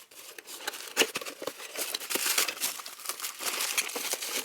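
Packaging rustling and crinkling as a product box is opened and its contents are unpacked, in an irregular run of small crackles and scrapes.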